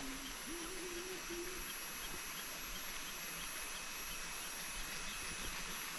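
Forest ambience: a steady high hiss of insects, with a faint low wavering hum in the first second and a half.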